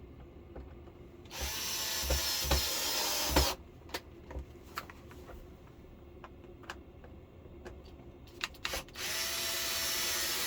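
Cordless drill driving screws into a plastic TV back cover: two runs of about two seconds each, with small clicks and knocks of handling between them.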